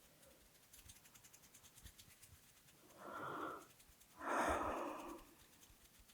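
Heavy breathing close to the microphone: two deep breaths, the second louder and longer, with faint clicks before them.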